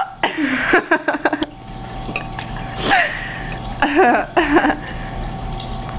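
A woman's hiccups mixed with breathy laughter: a cluster of short vocal bursts in the first second and a half, a single sharp hiccup about three seconds in, and two more short bursts around four seconds.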